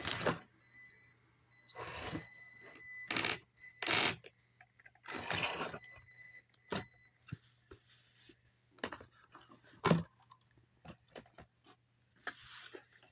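Traxxas TRX-4M RC crawler clambering over cardboard boxes: several short bursts of its small electric motor whirring and tyres scraping on the cardboard in the first six seconds, then scattered sharp knocks and clicks as the truck bumps and drops on the boxes, one knock about ten seconds in standing out.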